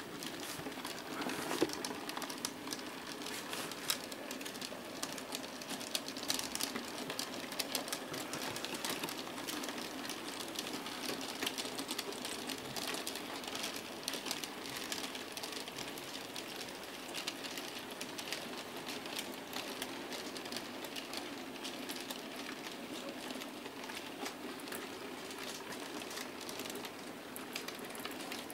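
OO-scale model goods train running along the track: a steady rattle of small wheels clicking over the rail joints, dense with tiny clicks.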